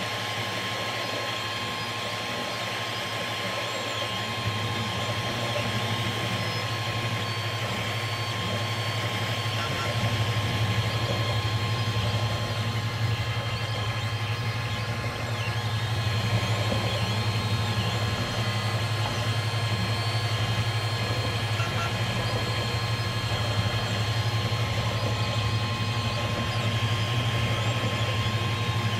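TEVO Tornado FDM 3D printer running a print at 70 mm/s: a steady hum from its cooling fans and motors, with faint wavering whirs from the stepper motors as the print head and bed move.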